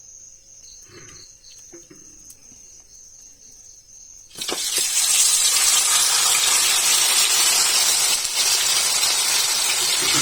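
Fish laid into hot coconut oil, which breaks into loud, steady sizzling about four seconds in.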